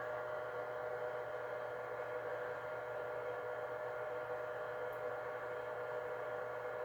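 Steady electrical hum with a couple of faint, steady whining tones above it.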